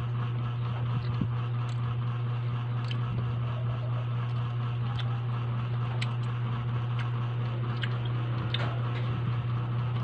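Chewing with a few small mouth clicks while eating kikiam, over a steady low hum from a room appliance such as a fan.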